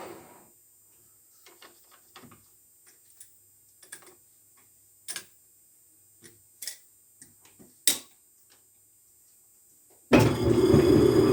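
Scattered light clicks and knocks of tools being handled at a metal lathe, then about ten seconds in the Logan lathe switches on and runs with a loud, steady hum.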